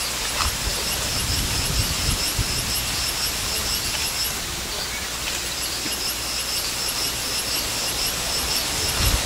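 Outdoor ambience: a steady noisy hiss with a low rumble under it, and a high-pitched call pulsing rapidly and evenly over it. The call breaks off a little after four seconds in and resumes about a second later.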